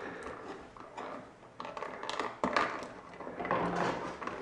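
Cardboard and plastic toy packaging crinkling and crackling as hands pull at it, with a couple of sharper snaps about halfway through.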